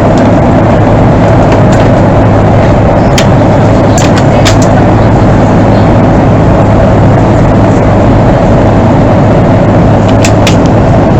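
Steady, loud cabin noise inside a Boeing 737-300 with CFM56 engines: a constant mix of engine and air noise with a low hum, broken by a few faint clicks.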